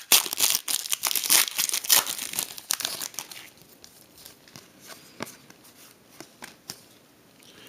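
Foil trading-card pack wrapper crinkling and tearing open for about the first three seconds, followed by a few faint ticks of cards being handled.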